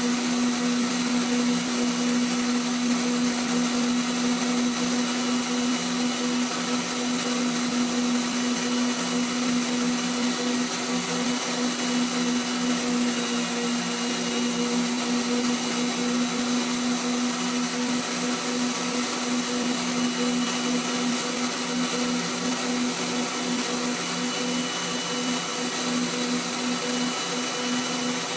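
Waldown tool post grinder running at speed, its small wheel grinding inside the bore of a collet chuck turning in the lathe on a dry trial pass: a steady hum with a high hiss, unchanging throughout.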